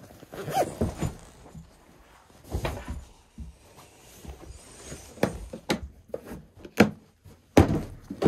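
Rustling and knocking as gear is handled in a small wooden ice-fishing house, then several sharp plastic clicks and clacks as a hard rod case is unlatched and opened.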